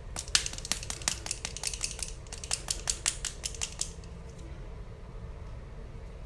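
Typing on a computer keyboard: a quick run of about two dozen key clicks, stopping about four seconds in.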